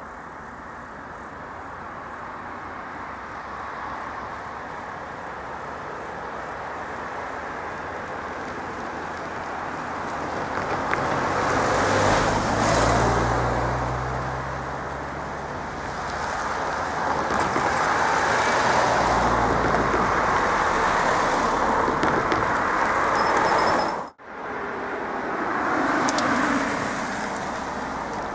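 Cars driving past and over a level crossing, tyre and engine noise swelling and fading as each one passes. There is an abrupt break about three-quarters of the way through, then more passing-car noise.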